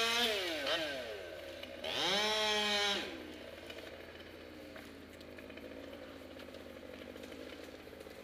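Gas chainsaw revved up to full speed twice in bursts of about a second, its pitch climbing each time, then dropping back to a quieter steady idle.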